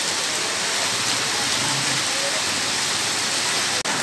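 Heavy rain falling steadily on a street and its stalls, an even hiss, with a momentary break near the end.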